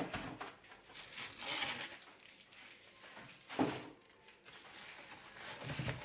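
Frozen food in plastic bags being handled in a chest freezer: a sharp knock at the start, a plastic rustle about a second and a half in, and another knock a little past halfway as hard frozen packages strike each other and the freezer.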